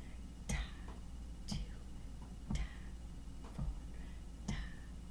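Sharp clicks marking a steady beat about once a second, five in all, each with a short hiss and a soft low thump beneath it. No trumpet tone is heard.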